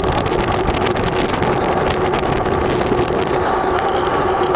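Tropical storm wind buffeting the microphone in a steady rush, with many small crackles and a steady hum underneath.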